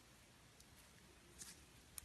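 Faint, soft crackles and clicks of slime being pressed and stretched, the clearest about one and a half seconds in, over near silence.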